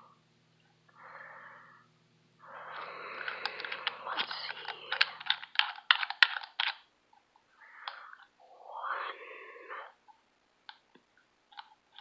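Soft breathy hiss close to the microphone, with a quick run of sharp clicks about three to six seconds in.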